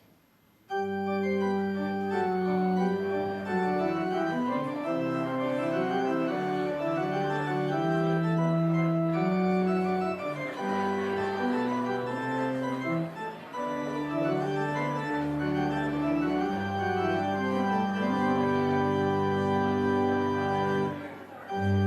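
Church organ playing a postlude of sustained chords, with a short break near the end before it starts again.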